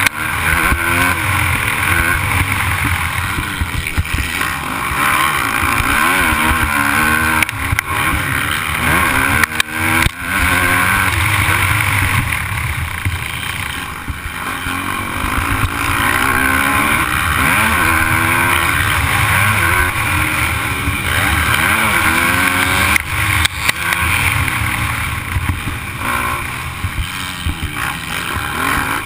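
The rider's own motocross dirt bike engine, close up, revving up and down again and again as the throttle opens and closes through the corners and over the jumps, with a steady rush of wind noise.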